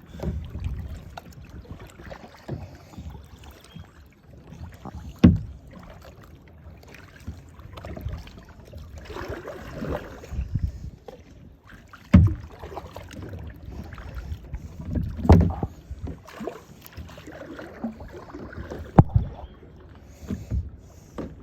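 Paddling sounds: paddle strokes splashing and dripping in the water, with a few sharp knocks against the hull at irregular intervals.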